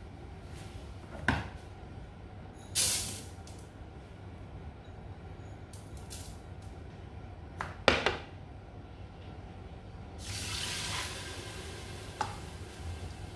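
Kitchen tap running in two short spells, once briefly and once for about two seconds near the end, with a few sharp knocks and clinks of kitchenware, over a low steady hum.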